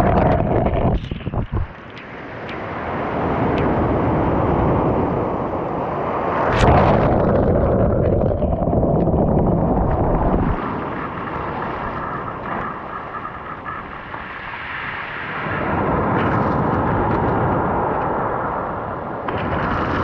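Sea waves breaking and washing up over a pebble beach right at the microphone, the water surging over and around it. The wash swells and fades in surges, the loudest about six to seven seconds in.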